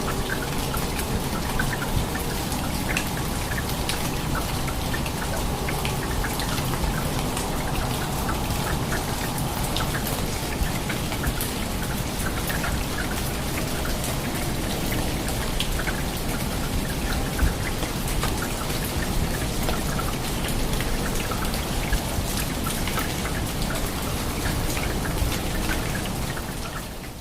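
Heavy rain falling steadily, with many individual drops ticking sharply on surfaces close by.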